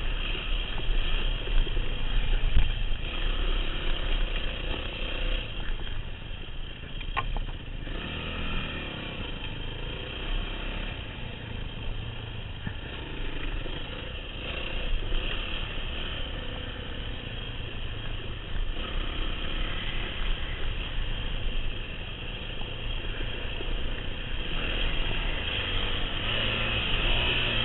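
Yamaha WR250F four-stroke dirt bike engine running as the bike rides a rough downhill trail, heard through a helmet camera. The engine and rattle are louder at first, ease off through the middle and pick up again near the end, with one sharp click about seven seconds in.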